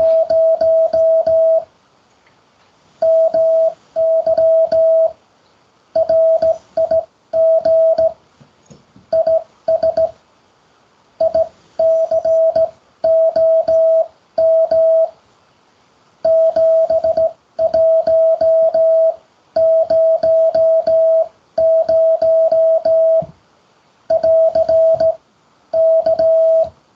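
Morse code (CW) sent as a single steady mid-pitched tone, keyed in quick short and long marks with pauses between letters and words, and a faint click at each key-down and key-up. The message spells out "my rig is ICOM 7100".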